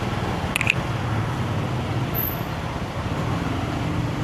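Steady motorbike and street traffic noise: an even low engine hum under a wash of road noise, with one short high-pitched blip about half a second in.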